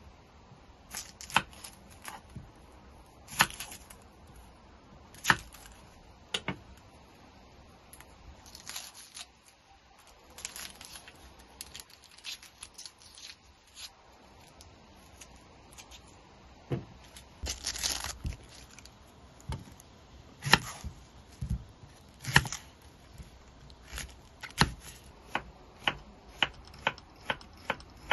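Chef's knife knocking on a wooden cutting board as onions are cut, with papery crackling and tearing as the dry onion skins are peeled off by hand. Near the end the knife strikes come quick and even, about two a second, as the onion halves are sliced.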